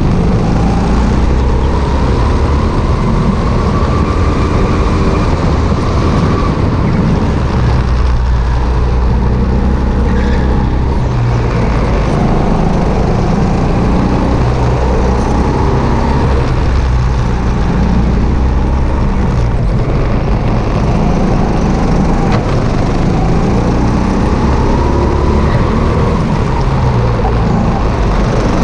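Sodi RT8 rental go-kart engine at racing speed, picked up by a camera mounted on the kart's chassis, its revs rising and falling repeatedly through the corners over a heavy low rumble.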